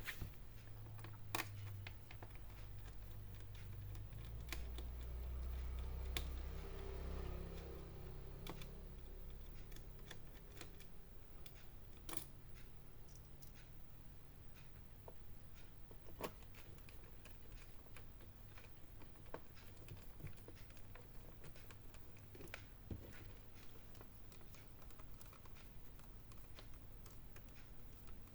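Faint, scattered clicks and taps of hands and a screwdriver working on an open laptop's plastic case and hinge screws, with a low rumble for a few seconds about five seconds in.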